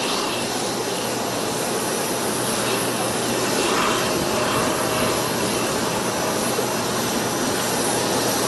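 Aircraft jet engine running steadily: an even rushing noise with a faint high whine over it.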